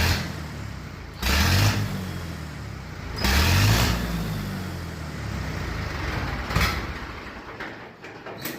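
Tractor diesel engine being revved in several short surges with a turbo whistle fitted in the exhaust, which makes no whistle at all; the engine sound dies away near the end.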